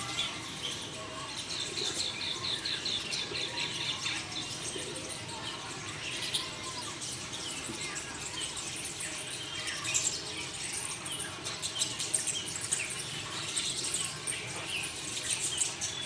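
Birds chirping and calling, many short high notes overlapping. A quick run of evenly repeated notes lasts about two seconds near the start.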